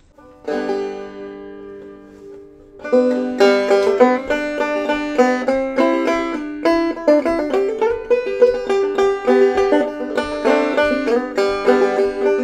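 Five-string banjo played clawhammer style: a chord struck about half a second in and left to ring and fade, then a quick old-time tune of rapidly plucked notes starting near three seconds.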